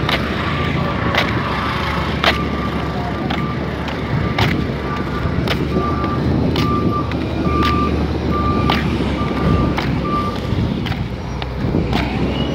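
Steady rumble of a moving road vehicle, with a sharp tick about once a second and a faint repeating electronic beep that stops about ten seconds in.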